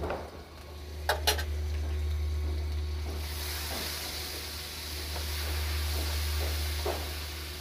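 Onions and ground spices sizzling in oil in a pan while a spoon stirs them, with two sharp clinks of the spoon against the pan about a second in and the sizzle growing louder about three seconds in. A steady low hum runs underneath.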